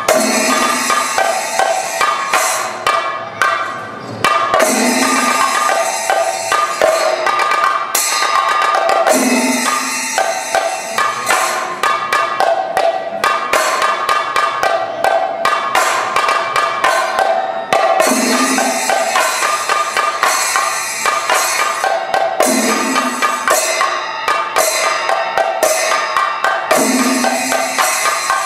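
Thayambaka: an ensemble of chendas beaten with sticks in a fast, dense rhythm, with ilathalam cymbals ringing steadily over it. A deeper stroke comes back about every four and a half seconds, marking the cycle of the rhythm.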